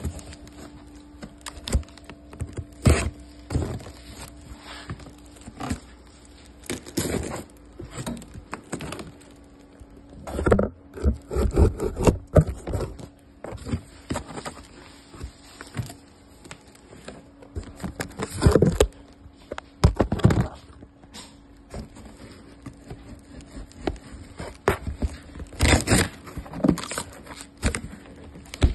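Clear packing tape being cut and ripped off a corrugated cardboard box, and the box being pulled open and pressed flat: irregular scraping, tearing and rustling of tape and cardboard, with a faint steady hum underneath.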